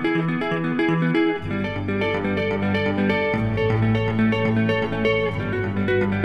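Music: guitar picking a quick, even run of notes, with low bass notes coming in about a second and a half in.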